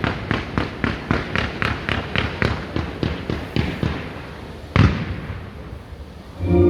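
Fireworks going off in a rapid salvo of sharp bangs, about four a second, which thins out, then one louder single bang about five seconds in. Music with long held tones comes in just before the end.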